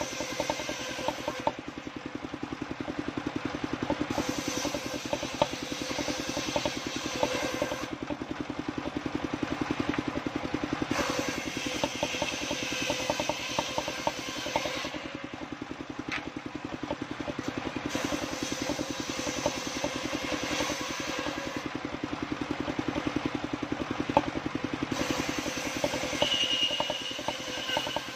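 Engine-driven circular saw bench running steadily while waru wood is ripped into battens. The engine's fast, even beat continues throughout, and the blade's hiss of cutting comes in several passes, each a few seconds long.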